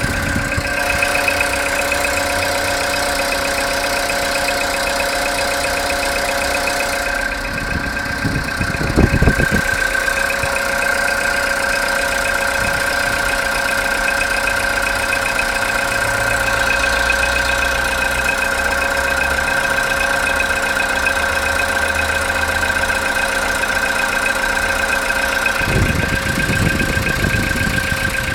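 Car engine idling cold after a night's standing, with a knock that the owner says gets quieter when revved and disappears after about ten minutes of warming up. A brief low rumble comes about eight seconds in and again near the end.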